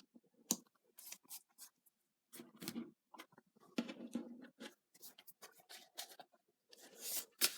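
Faint rustling and light clicks of oracle cards being handled, in quick irregular bursts.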